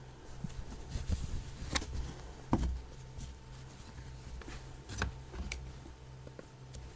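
Hand-embroidery handling sounds: linen fabric rustling and a wooden embroidery hoop being turned and handled, with a few sharp clicks and soft knocks, the loudest about two and a half seconds in. A low steady hum lies under them.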